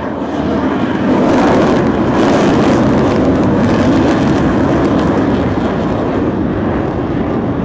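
Jet aircraft flying past. The engine noise builds about a second in, crackles for a couple of seconds, then holds loud and steady.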